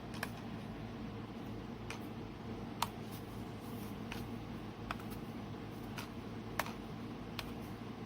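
Light, sharp clicks, about eight of them at uneven intervals, over a steady low hum.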